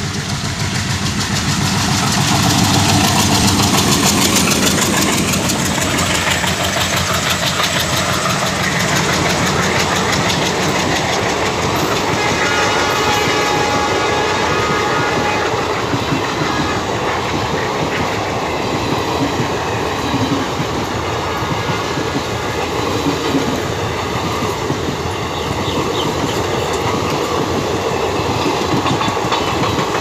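Twin WDM3D ALCO diesel locomotives passing at speed, a horn sounding right at the start and the engines chugging under acceleration. The long rake of coaches then runs by with a steady clickety-clack of wheels over rail joints.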